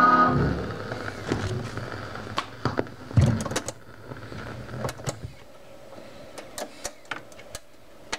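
Philips record player's mechanism working after a 45 rpm single ends: the tonearm lifts off the record and returns, with a series of mechanical clicks and clunks and a low thud about three seconds in. The last note of the song dies away right at the start.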